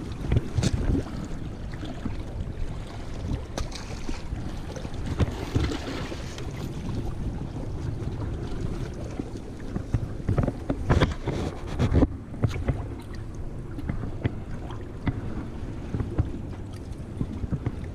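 Steady rush of wind on the microphone and flowing river water, with scattered knocks and scuffs of shoes and clothing as someone climbs over large riprap boulders; the loudest knocks come about eleven and twelve seconds in.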